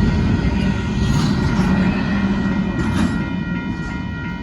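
Union Pacific intermodal freight train cars rolling past, with a loud, dense rumble and clatter of wheels on the rails. A steady high-pitched ringing rides over the rumble, which eases slightly near the end.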